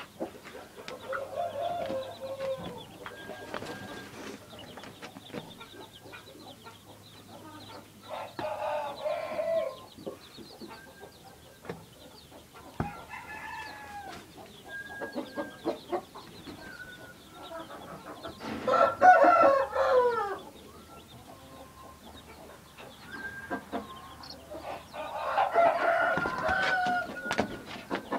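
Chicks peeping in short high notes, with louder, drawn-out chicken calls falling in pitch coming five times, the loudest about two-thirds of the way through.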